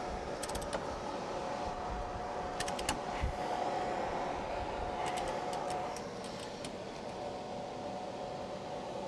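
A few light, scattered clicks from a wrench working the steering-linkage nuts, over a steady mechanical hum.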